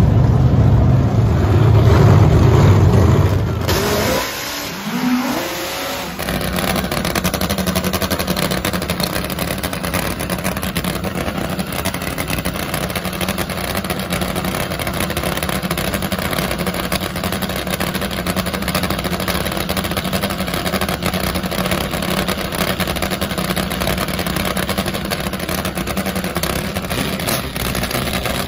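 Top Fuel nitro-burning drag motorcycle engine running. Heavy, low engine sound for the first few seconds fades out about four seconds in, then a steady, rough idle carries on.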